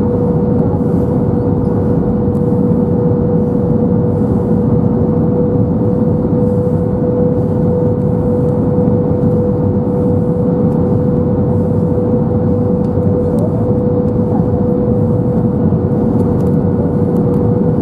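Cabin noise in an Airbus A321-231 with IAE V2500 engines, heard from a window seat by the wing on final approach. A steady rush of engine and airflow noise, with a steady mid-pitched tone running through it.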